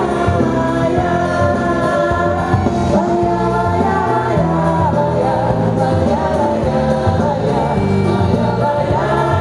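Loud festa junina music in forró style: a wavering melody over a steady beat, with no break.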